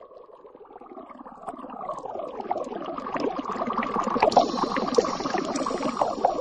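Water-like bubbling and swirling sound effect opening a Mandopop song's intro, with sweeping falling tones, swelling steadily louder.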